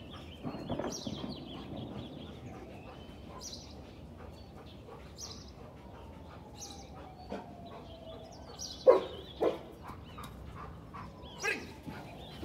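Dog barking: two sharp barks about nine seconds in, half a second apart, and a softer one near the end. Faint bird chirps repeat in the background.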